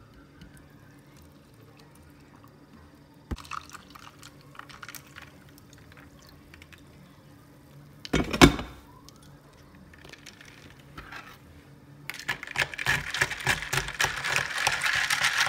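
Iced coffee being made in a plastic tumbler: liquid poured over ice, with scattered clinks, a sharp knock about eight seconds in, and a busy rattle of ice and liquid in the last few seconds.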